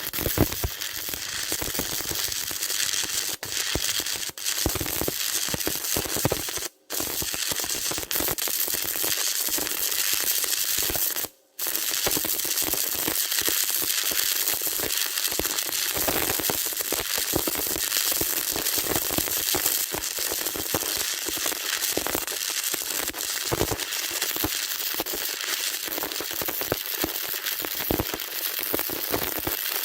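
Welding arc crackling and sizzling steadily while a horizontal weld is run. The arc cuts out twice for a moment, about a third of the way in, then strikes again.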